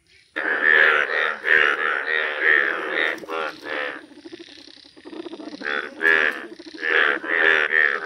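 Indian bullfrogs croaking, a loud run of rapid, rattling calls that starts suddenly, thins out about halfway and then picks up again.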